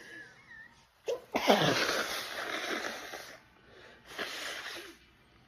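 A woman sneezing in a sneezing fit tagged as allergic rhinitis: one loud sneeze about a second and a half in, its voiced cry falling in pitch and trailing off in a breathy rush. A second, shorter burst of breath follows about four seconds in.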